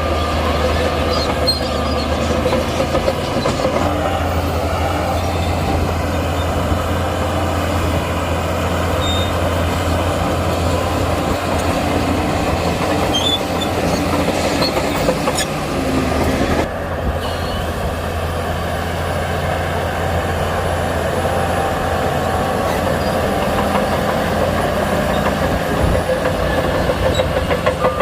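Shantui crawler bulldozer at work: its heavy diesel engine runs steadily under load with a constant low drone, along with metallic squealing and clanking of steel tracks. About two-thirds of the way through, the higher part of the sound drops away abruptly.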